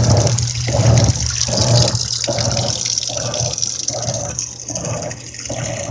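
Kenmore/Whirlpool top-load HE washer agitating in strokes, about one every three-quarters of a second, over a steady motor hum and water spraying in as the tub fills. It is agitating before the tub has filled, which the owner calls energy wasting.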